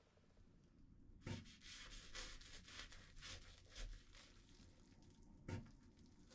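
Knife sawing through a cling-film-wrapped cream fruit sandwich on a wooden cutting board, the plastic wrap crinkling and tearing with a series of short strokes. There is a knock about a second in and another near the end.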